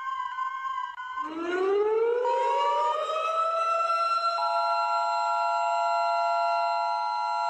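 Emergency alert alarm audio. A short stepped, warbling alert tone cuts off about a second in, and a civil-defence-style siren winds up from a low pitch into a steady wail. A steady electronic tone sounds briefly over it, and from about halfway through a pair of close steady tones holds alongside the siren.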